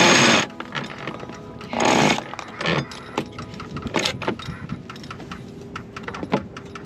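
Sailboat sheet winch ratcheting as the genoa sheet is hauled in to unfurl the genoa: two loud rapid runs of clicking near the start and about two seconds in, then scattered single clicks and knocks of the line and winch.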